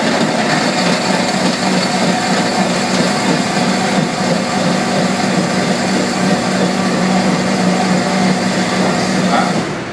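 Commercial blender, its jar under a clear sound-enclosure hood, running steadily as it blends ice, milk, yogurt and blueberries into a smoothie. It shuts off near the end.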